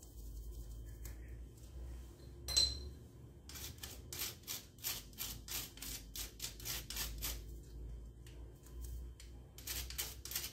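A spoon scraping a dry ground spice through a small mesh sieve: short, rhythmic scratching strokes, about three a second. There is a single sharp clink about two and a half seconds in.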